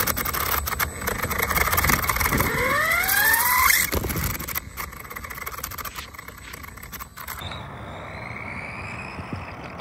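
Tamiya TT02 radio-controlled car's electric motor and gears whining, rising sharply in pitch as the car accelerates, with wind and road rumble on the car-mounted phone's microphone. About seven seconds in the sound drops to a fainter whine.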